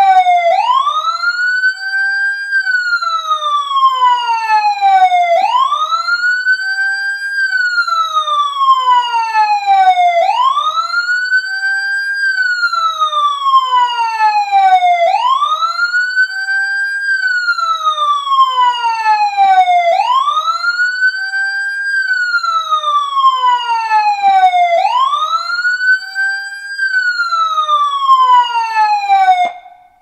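Emergency vehicle siren, loud and close, sounding in a slow wail: each cycle rises quickly, holds briefly at the top and glides slowly back down, repeating about every five seconds. It cuts off suddenly near the end.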